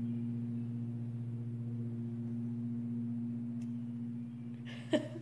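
A steady low hum with a few evenly spaced overtones, like an appliance or electrical hum in a quiet room. About five seconds in, a brief vocal sound from a woman.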